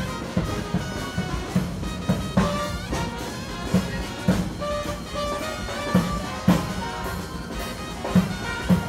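Brass-band jazz music: horns playing held and moving notes over a drum kit, with loud drum hits standing out every second or so.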